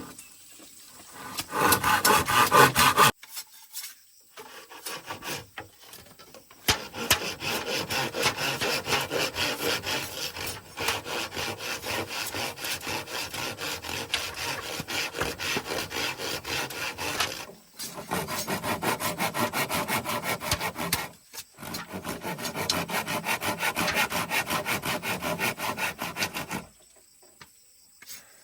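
Rapid back-and-forth scraping strokes, several a second, as of a tool rubbing on wood, kept up for long stretches with a few short pauses.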